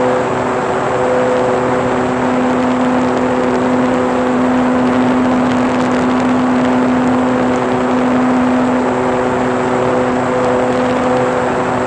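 RC model airplane's motor and propeller running at a steady pitch, recorded by a phone mounted on the plane, over a steady rush of air.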